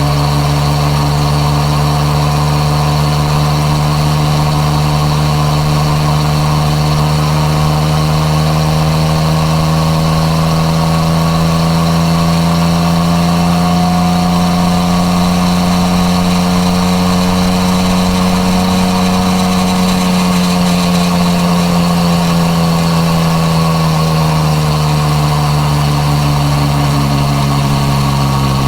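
Yamaha MT-09 Tracer's three-cylinder engine breathing through an Akrapovič exhaust, running steadily on the move. Its pitch climbs slowly through the middle and eases back down near the end, with no gear changes.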